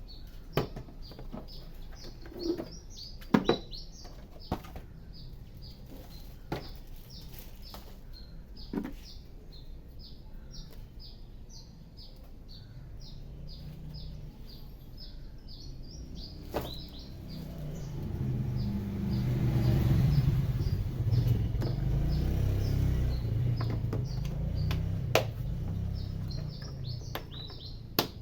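Small birds chirping in a quick, steady run of short high notes, broken by a few sharp knocks and clicks. About two-thirds of the way through a low rumble swells up, then fades a few seconds later.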